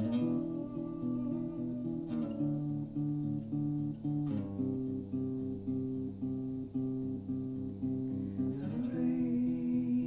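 Electric guitar played clean through an amplifier: a steady picked arpeggio with a struck chord change every few seconds. Near the end a voice comes in with a soft held note over the guitar.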